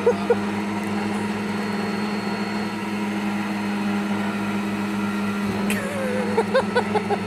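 Electric mini loader's hydraulic pump motor running with a steady hum under heavy load as it tries to lift logs beyond its rated 400 kg capacity.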